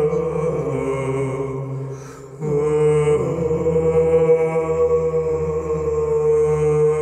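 Male voices singing Byzantine chant a cappella in the first mode: a long, melismatic melodic line held over a steady low ison drone. The singing dips briefly about two seconds in, then comes back in strongly.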